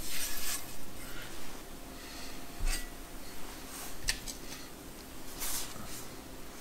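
Whole raw quail being laid into a hot cast-iron skillet of melted butter and rosemary, with a few short hisses from the butter and soft handling sounds of the meat.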